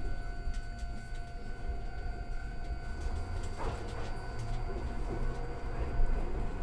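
Iyo Railway electric train standing at a station with a low rumble and a steady electrical hum, the hum fading out about three seconds in.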